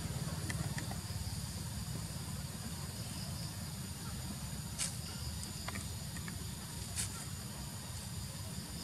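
Forest ambience: insects trill steadily at a high pitch over a low rumble, with two short sharp clicks about five and seven seconds in.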